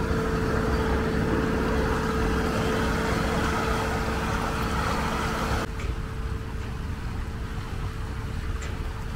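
An engine drones steadily, one constant tone over a low rumble, mixed with the rush of river water churning around sandbags. The rushing noise drops away abruptly a little past halfway, leaving the engine drone.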